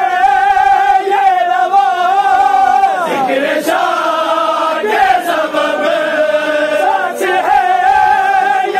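A group of men chanting an Urdu noha in unison, holding long sung notes. A few sharp slaps of hands striking chests in matam cut through the singing.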